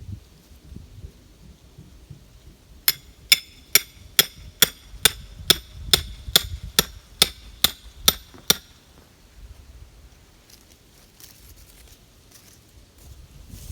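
A hammer striking a steel rebar stake about fourteen times in a steady rhythm, roughly two and a half blows a second, each blow ringing with a metallic tone as the bar is driven into the ground.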